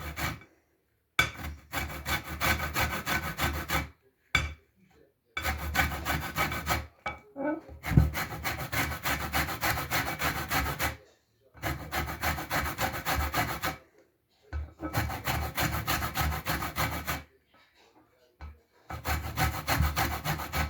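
Lemon peel being grated by hand on a metal grater: quick, even scraping strokes in five runs with short pauses between them, zesting the lemons down to the white pith.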